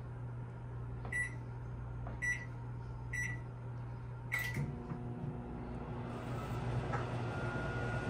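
GE JVM3160DF9WW over-the-range microwave oven: three short keypad beeps about a second apart, then a fourth as Start is pressed, after which the oven starts running with a steady hum.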